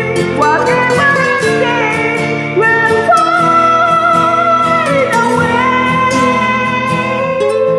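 A woman singing a ballad into a karaoke microphone over a backing track with guitar. She holds long notes, and one high note slides down about five seconds in.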